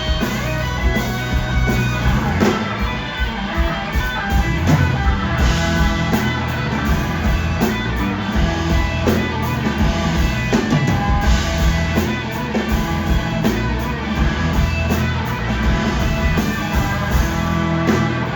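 Live rock band playing an instrumental passage: guitar over a drum kit, with no vocals.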